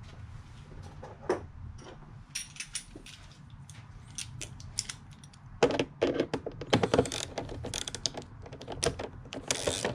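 A hand ratchet clicking as the locating screw of a plastic car airbox is driven in, with rapid runs of clicks in the second half. Before it come sparse clicks and knocks from the plastic airbox being settled into place.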